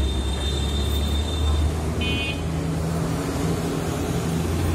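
Street traffic: a motor vehicle's engine running steadily with a low hum, and a short high beep about two seconds in.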